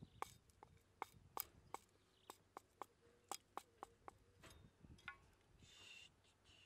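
Cleaver splitting and trimming thin bamboo strips: a quiet run of sharp cracks and taps, a few per second, with a brief scraping rasp near the end.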